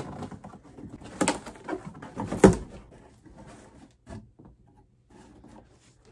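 Cardboard shipping box being rummaged through and its contents lifted out: rustling with a few sharp knocks, the loudest about two and a half seconds in, then only faint handling sounds.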